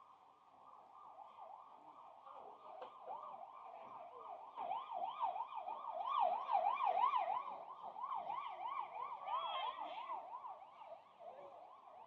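A fast warbling, siren-like tone that swings up and down about three to four times a second. It grows louder toward the middle and fades away near the end.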